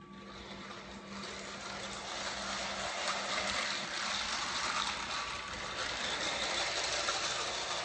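Motorized Lego tram with a Power Functions motor running along plastic Lego track: a steady whirring rattle of motor and wheels that grows louder over the first few seconds.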